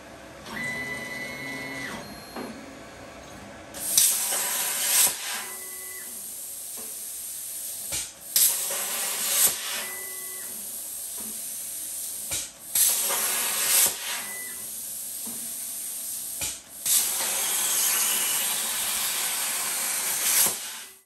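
Razorweld Razorcut 45 air plasma torch on a Langmuir Crossfire Pro CNC table cutting 14 gauge steel: a loud, even hiss of the cutting arc in four long stretches, each opening with a pop and broken by short pauses between cuts. Before the first cut there is a short whine from the table's motors as the gantry moves the torch into place.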